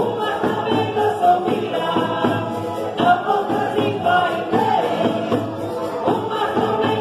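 Live Portuguese folk dance music: a group of voices singing a folk song together over a steady percussion beat.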